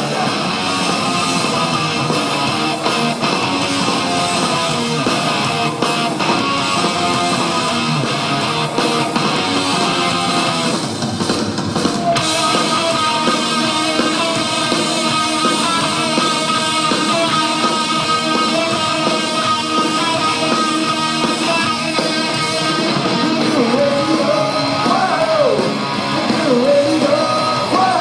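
Live rock band playing, with electric guitars to the fore. A man's voice sings over the band near the end.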